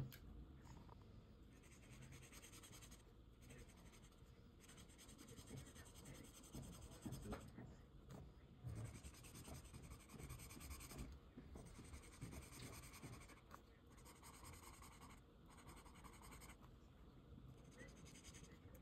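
Faint scratching of a felt-tip marker stroking across Leuchtturm 1917 sketchbook paper while colouring, in runs of strokes with short pauses between.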